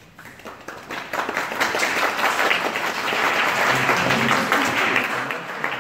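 A small group of people clapping. The applause builds up in the first second, holds steady, and thins into a few separate claps near the end.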